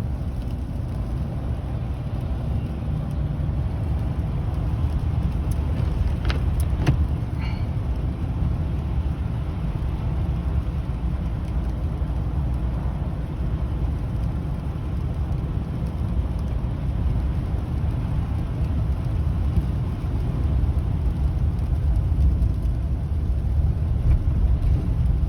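Steady low rumble of a car driving on wet, snowy winter roads, heard from inside the cabin. A couple of brief faint sounds come about six to seven seconds in.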